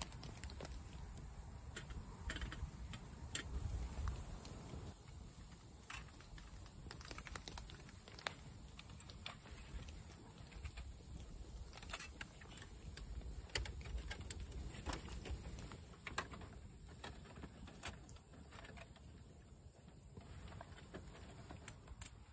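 Small twig campfire crackling, with scattered sharp ticks and clicks over a low rumble that comes and goes, loudest in the first few seconds.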